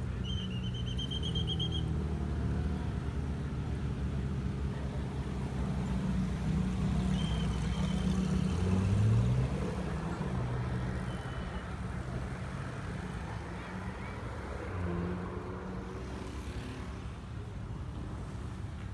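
Sports car engines rumbling at crawling speed, with one engine revving up briefly about eight to nine seconds in. A short, shrill whistle sounds at the start.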